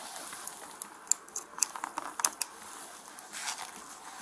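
Metal handcuffs on a person's wrists being worked with a key: a run of small sharp clicks and rattles, thickest around the middle.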